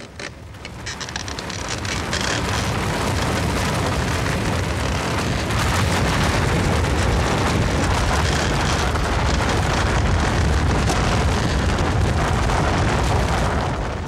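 A long, continuous rumble with crackling, of snow and ice giving way and collapsing. It builds over the first couple of seconds, holds steady, and fades near the end.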